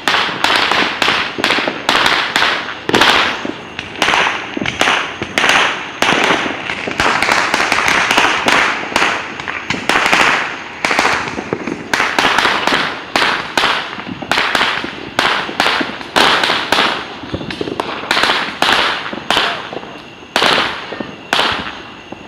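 Fireworks and firecrackers going off in a dense, continuous barrage: sharp bangs and pops, several a second, each with a short echoing tail. The bangs thin out a little near the end.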